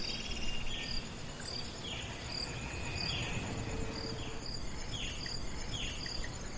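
Tropical countryside ambience: a steady high insect trill with a short chirp repeating about twice a second, and birds giving short falling calls here and there.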